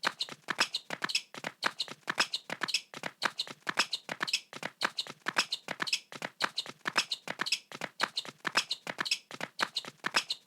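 Cartoon sound effect: a fast, even run of light taps, about five a second, going on without a break.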